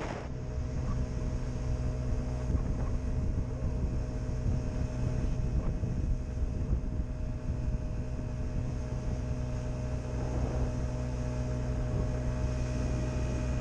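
Motor scooter engine running at a steady cruising speed: an even, unchanging drone.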